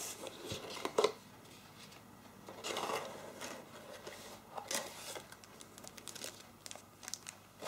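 Cardboard and paper packaging being handled: rustling and sliding of card with scattered light scrapes and clicks, and a sharp knock about a second in.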